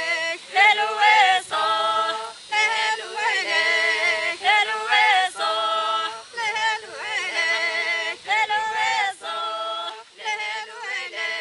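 Unaccompanied singing: voices singing phrases of long held notes with short breaks between them.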